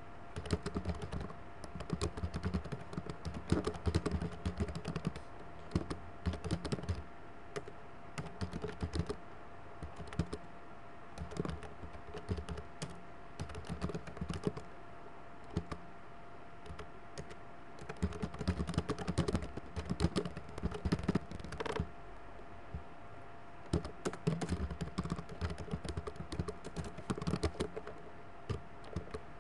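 Typing on a computer keyboard in quick bursts of keystrokes with short pauses between them, over a faint steady hum.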